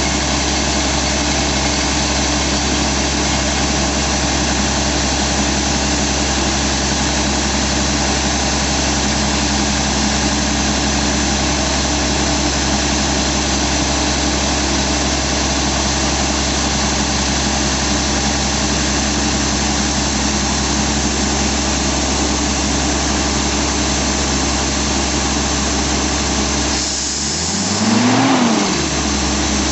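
Crawler-mounted rock drill rig running, a loud steady mechanical din. Near the end it briefly drops, then a short whine rises and falls within about a second.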